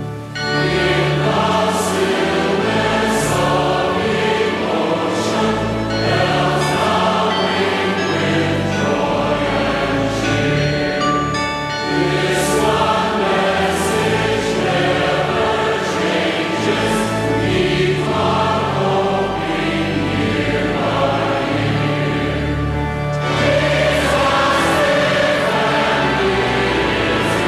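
Choir singing with accompaniment, over steady held low notes.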